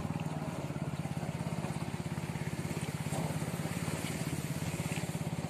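A small boat's motor running steadily with a fast, even beat.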